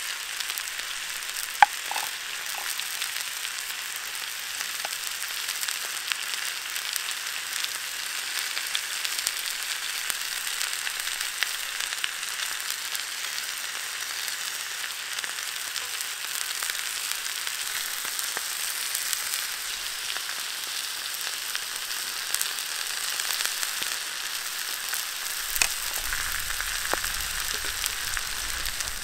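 Steak frying in a black pan over an open fire: a steady sizzling hiss with a few sharp pops.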